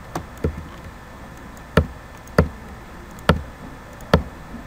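Six sharp, unevenly spaced clicks of a computer mouse and keyboard being worked.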